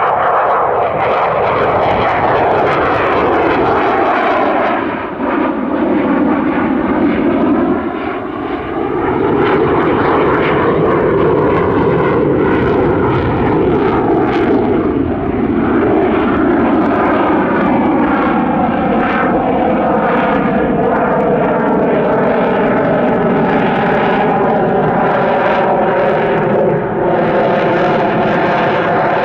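General Dynamics F-16AM Fighting Falcon's single Pratt & Whitney F100 turbofan, a loud, continuous jet roar as the fighter manoeuvres overhead. Its tone sweeps down, rises again about ten seconds in, then slowly falls as the jet moves across the sky.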